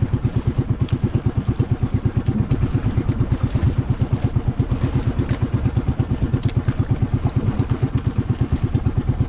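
A small boat engine running steadily at a constant speed, with a rapid, even low thudding of about eight beats a second.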